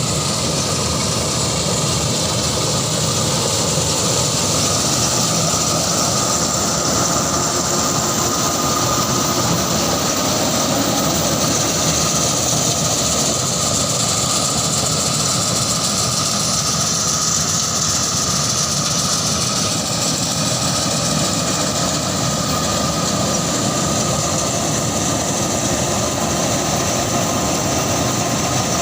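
Combine harvester engine and threshing machinery running steadily at a constant loud level.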